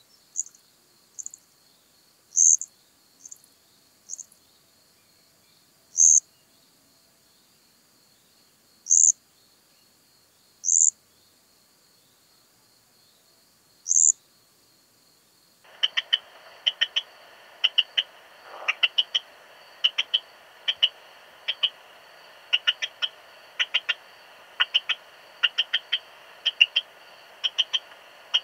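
Male eastern stripe-headed cricket (Modicogryllus frontalis) singing: short, high chirps at irregular gaps of one to three seconds. About halfway through, the song is heard through an ultrasound bat detector tuned to 20 kHz: lower, sharper chirps, about one to two a second, over a steady detector hiss.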